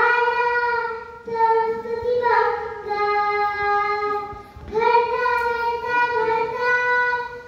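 A young girl singing a Marathi devotional pada solo into a microphone, in long held notes with short pauses for breath between phrases.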